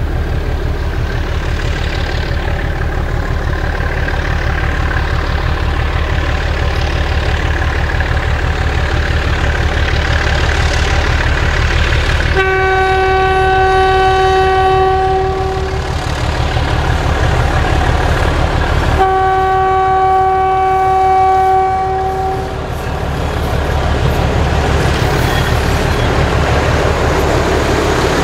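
MaK V65 diesel locomotive approaching under power, its engine giving a steady low throb, sounding its horn in two long single-tone blasts of about three seconds each, the first a little before halfway and the second a few seconds later, as a warning for the level crossing ahead.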